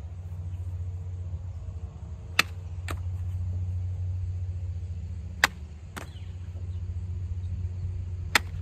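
Hanwei Practical Plus XL katana cutting through a rolled tatami mat: three sharp cracks about three seconds apart, the first two each followed about half a second later by a fainter crack.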